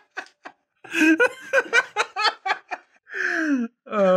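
Men laughing in quick bursts, ending in two drawn-out vocal sounds that fall in pitch, the longer and louder one near the end.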